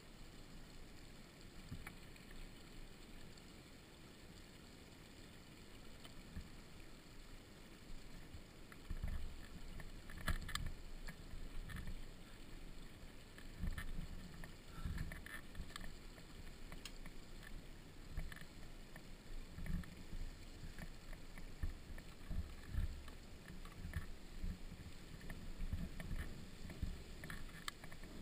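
Dirt bike rolling down a rough, dusty trail: wind rumbling on the microphone, with irregular low thumps and short rattles over the bumps that come more often from about nine seconds in. No steady engine note stands out.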